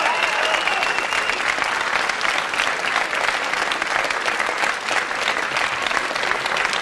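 Studio audience applauding steadily at the end of a song; a high held tone left over from the music stops about a second in.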